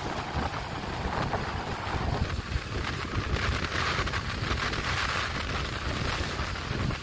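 Wind buffeting the microphone, with small waves washing up on the sand.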